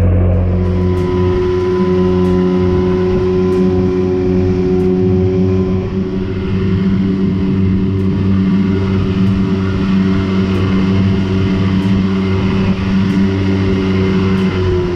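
Outboard motor running steadily at cruising speed, with the hiss of water and spray rushing past the hull.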